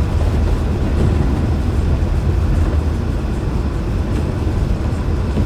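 Steady low rumble of a car's tyres and engine heard inside the cabin while driving on a snowy highway.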